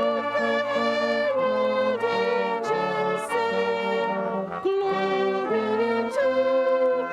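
Brass band playing a tune in full held chords that change about every second.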